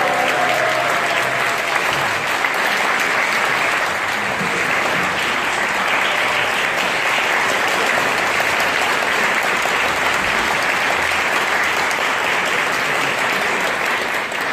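Audience applauding steadily as a choir's song ends, the last sung notes fading out in the first moment.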